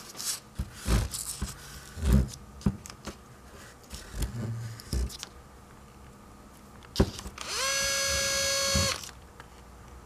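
Scattered taps and clicks of handling, then an electric drill spins up and runs at a steady pitch for about a second and a half near the end. It is spinning a small door-lock-actuator motor part in a pin vise against emery paper to polish off the oxide.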